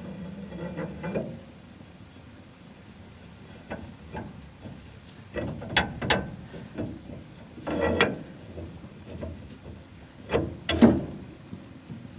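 Full-floating rear axle shaft being slid into a 1977 Ford F250's rear hub and turned by hand to seat its splines: scattered metal clicks and scraping, with several sharper metal clunks in the second half as the flange goes home against the hub.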